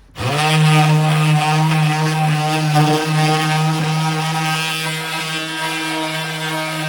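Electric sander switched on, spinning up quickly and then running with a steady buzzing hum while sanding down the wooden closet unit.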